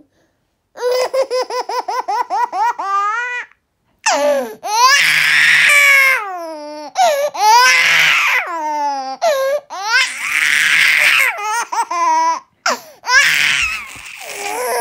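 Infant laughing: a quick run of high, rapid giggles in the first few seconds, then longer squealing laughs that fall in pitch, broken by short pauses for breath.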